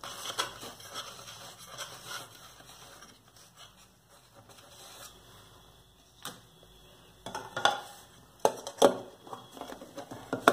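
A knife scraping faintly around the inside rim of an aluminium cake tin, loosening the baked cake from the sides. From about seven seconds in come several sharp knocks and clatters as the metal tin and a plate are handled and the tin is turned over onto the plate.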